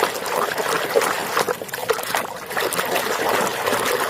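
Water trickling and splashing in small, irregular spatters as muddy toy vehicles are washed by hand.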